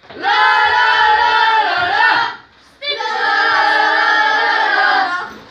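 A group of boys singing a team song together in unison, unaccompanied: two long sung phrases with a short break for breath about two and a half seconds in.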